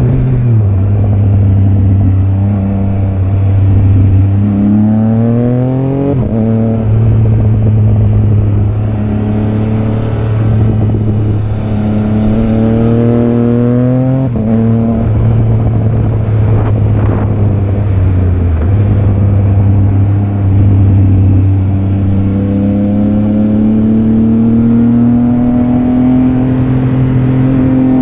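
Triumph Trident 660's inline three-cylinder engine running under way, its note climbing three times as it accelerates, each climb ending in a sudden drop in pitch.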